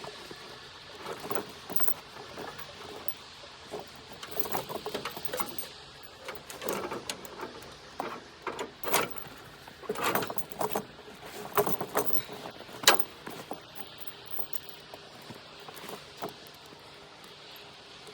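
Heavy steel tire chain on a backhoe tire clinking and jangling in irregular clusters of sharp metal-on-metal clicks as the outside fastener of a tightly fitted chain is worked to buckle it.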